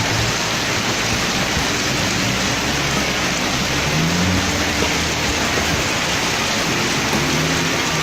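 Heavy rain falling steadily, a dense even hiss, with faint low tones now and then underneath.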